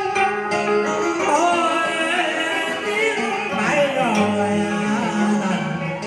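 Vietnamese tân cổ giao duyên song: sustained instrumental accompaniment, with a singing voice entering about a second in on a bending, ornamented melody.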